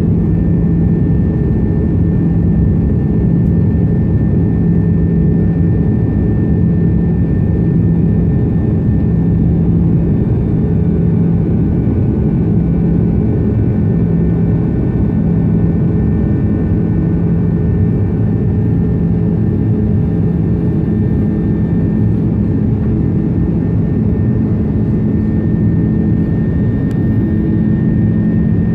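Steady jet airliner cabin drone inside an Airbus A330-200 with GE CF6-80E1A3 engines running, a deep even rush with a few constant hum tones and no change in pitch or level.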